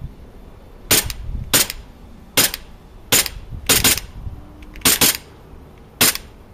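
Echo 1 Timberwolf gas blowback airsoft pistol firing about nine sharp shots at an uneven pace, some in quick pairs, each crack carrying the slide's blowback cycle.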